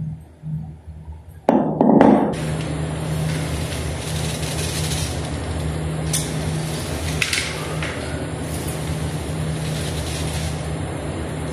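Steady mechanical hum with an even rushing noise, starting abruptly about a second and a half in and running evenly after that.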